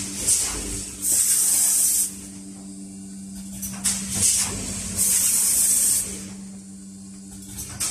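Automatic premade-bag filling and sealing machine running through its cycle: loud one-second blasts of compressed-air hiss about every four seconds, with short mechanical clicks between them over a steady low hum.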